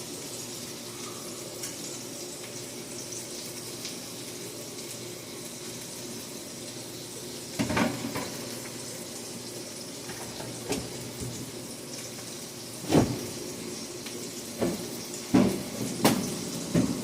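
Burgers and buttered buns sizzling on a steel griddle in a steady hiss, with a few sharp clacks, one about halfway and several close together near the end.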